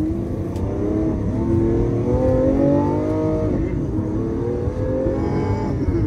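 Lamborghini Aventador S's 6.5-litre V12 accelerating hard, heard from inside the cabin: the engine note rises, drops at an upshift about four seconds in, rises again and drops at another upshift near the end.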